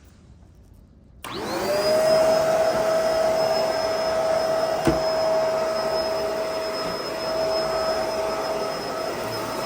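Bissell 2-in-1 Lift-Off vacuum cleaner switched on about a second in, its motor whine rising quickly and then running steadily. A single sharp click comes about halfway through.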